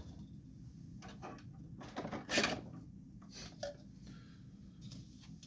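Plastic filament spools being pulled off their printed adapters on an AMS Lite spool holder: a few short scrapes and knocks, the loudest about two and a half seconds in, with quiet between.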